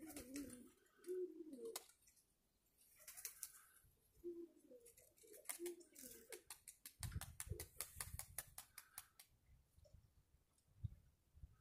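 Domestic pigeons cooing in low, wavering phrases, faint against the quiet. A little past halfway, a rapid run of faint clicks with a low rumble comes in.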